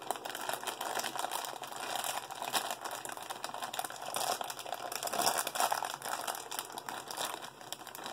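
Funko Mystery Minis blind-box packaging crinkling and rustling as it is torn open by hand.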